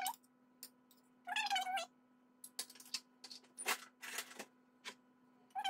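A cat meowing: one short falling call about a second and a half in and another starting at the very end. In between come several clinks and scrapes of a metal spoon against a plate as food is served.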